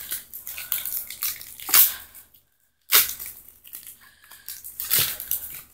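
Pokémon booster pack's foil wrapper crinkling and tearing as it is ripped open by hand. The crackling comes in two bouts with a short pause about halfway.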